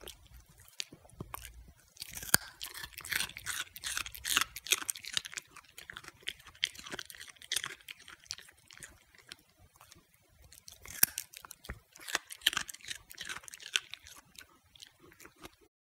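Italian greyhound crunching and chewing a raw carrot stick: a run of sharp crunches, thickest from about two to five seconds in and again from about eleven seconds, with sparser chewing in between.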